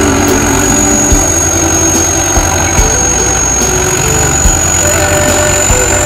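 Sakpattana SS-200 combine harvester running steadily while cutting rice, its four-cylinder turbocharged engine droning under load, with a constant high whine and a few brief knocks.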